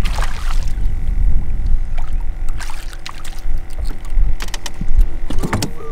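Wind gusting on the microphone as a low rumble, with scattered short clicks and knocks from a canoe and fishing tackle while a small redfish is reeled in.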